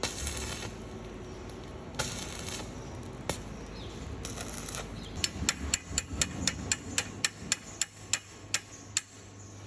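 A run of about eighteen light, sharp taps, roughly four a second, spacing out near the end, like tool work on a part during the power steering pump rebuild. Before them come three short bursts of hiss.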